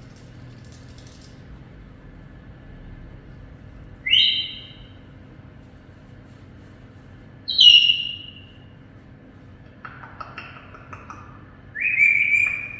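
Pet parrot whistling: three loud, short whistles a few seconds apart, with softer chattering between the second and third.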